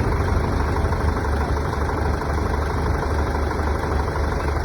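Heavy construction machinery engine running steadily at a constant speed, a continuous low rumble with no change in pitch or load.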